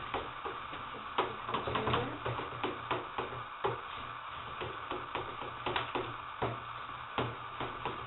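A spoon stirring melted chocolate and nougat in a bowl, clicking and scraping irregularly against the bowl's sides, over a steady low hum.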